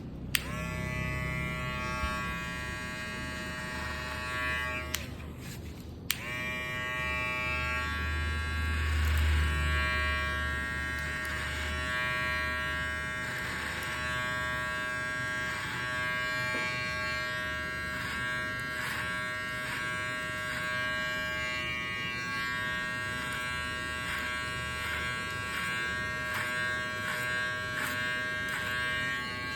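Electric hair clipper running with a steady hum as it cuts hair. It cuts off with a click about five seconds in and starts again a second later.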